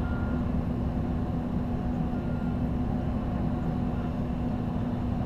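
Steady low rumble with a constant hum from the aerial ladder truck's running engine, with wind buffeting the GoPro mounted on the raised bucket.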